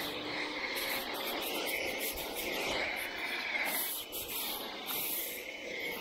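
Pressure washer foam cannon spraying foam, a steady hiss.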